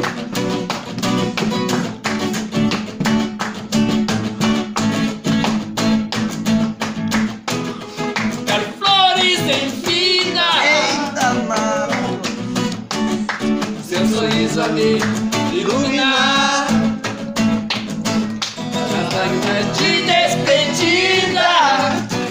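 Acoustic guitar strummed in a steady chord rhythm, with singing over it from about nine seconds in.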